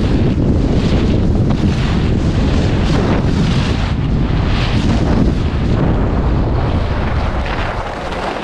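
Wind buffeting the action camera's microphone while skiing downhill at speed, a loud low rumble, with the skis hissing over packed groomed snow in repeated swishes about once a second as the skier turns. It eases a little near the end as the skier slows.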